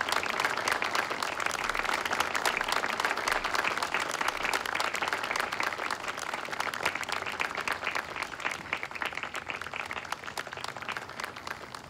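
A crowd applauding, many hands clapping at once, slowly dying down toward the end.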